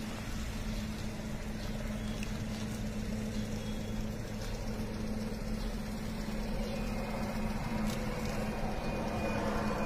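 Maruti Suzuki Wagon R hatchback's engine running at low speed as the car creeps through a tight turn, over a steady low hum; it grows a little louder in the last few seconds.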